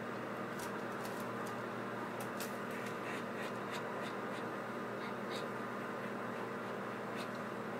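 Soft kissing smacks and nuzzling against a Chihuahua's fur, heard as scattered short clicks over a steady low electrical hum.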